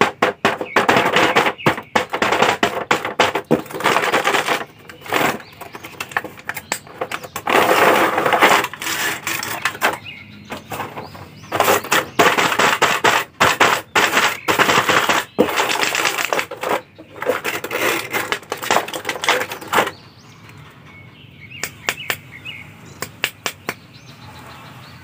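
Thin clear plastic blister packaging crinkling and crackling under the hands as action figures are pressed on and pulled out of their tray, in dense runs of crackles with short pauses. Over the last few seconds it thins to a few scattered clicks.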